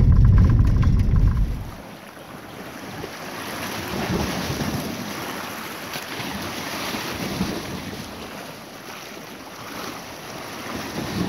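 Ocean waves washing in, swelling and easing every few seconds, with wind buffeting the microphone. A low rumble fills the first couple of seconds and then cuts off suddenly.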